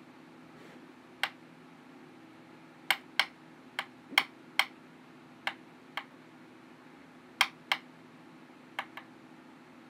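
About a dozen sharp clicks or taps at irregular spacing, several in quick pairs, over a faint steady low hum.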